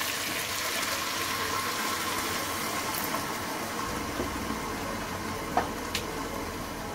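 Potatoes and peas in masala sizzling and bubbling steadily in a kadai, with a couple of short clicks near the end.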